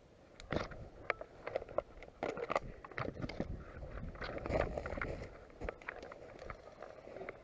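An airsoft player moving with gear: scattered clicks, knocks and scraping over rustling, at an uneven pace.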